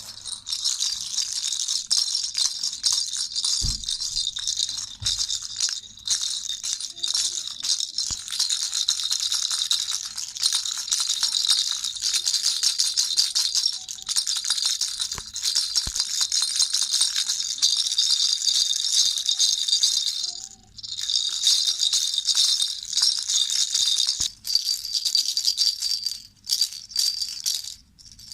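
Baby rattle toy (jhunjhuna) shaken quickly and continuously, a dense, bright rattling of small pieces inside. It breaks off briefly about twenty seconds in and twice more near the end.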